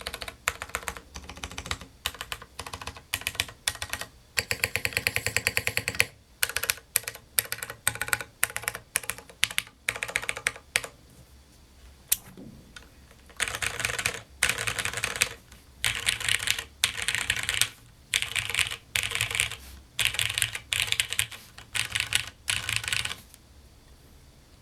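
Typing on an LZ GHv1 tenkeyless mechanical keyboard with lubed Cherry MX Brown switches, a polycarbonate plate and PPS keycaps. It starts with separate keystrokes and one short fast run. From about halfway it turns into a series of quick typing bursts, each about a second long, with short pauses between.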